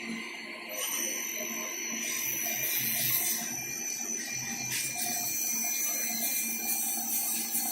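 CNC machine running, with a steady high whine that sets in about a second in over a hissing noise.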